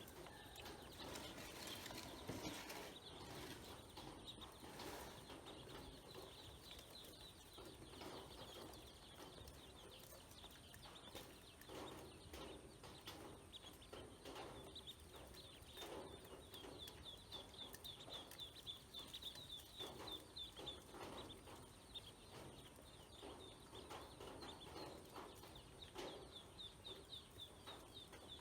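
Ducklings peeping faintly, in runs of rapid, short, high chirps that grow busier in the second half, with a few soft knocks among them.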